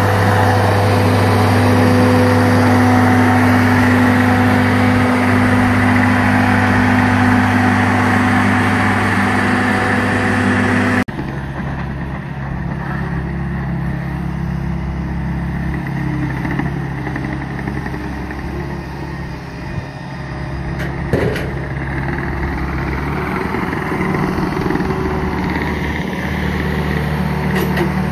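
Ditch Witch SK3000 mini skid steer's engine running steadily as the machine carries a large log. About eleven seconds in the sound drops abruptly to a quieter, lower hum, with a short knock about twenty seconds later.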